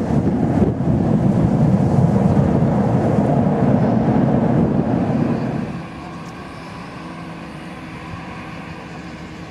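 Airbus A321 jet engines in reverse thrust during the landing rollout: a loud rushing roar that drops away about six seconds in. After that the engines run at low power with a steady whine and hum.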